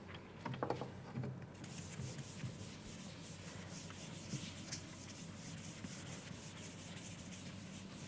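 Chalk scratching on a blackboard as a line of writing goes up, a faint, irregular dry rubbing that starts about a second and a half in.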